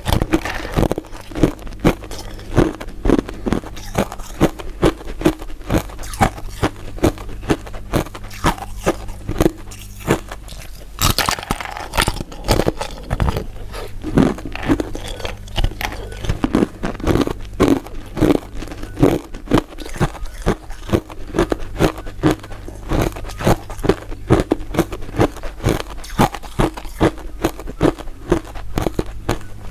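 Close-miked crunching and chewing of crisp crystal ice dessert pieces: rapid, repeated crisp crackles, with a louder stretch of crunching a little before the middle.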